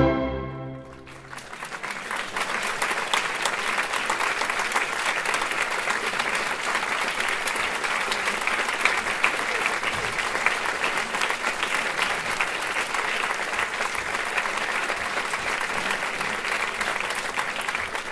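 Orchestral music ends on a final chord right at the start, then a theatre audience applauds steadily.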